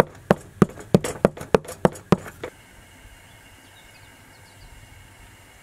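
A metal hand press knocking down onto a metal tray as it flattens hot sesame brittle: a quick, even run of sharp knocks, about three a second, that stops about two and a half seconds in.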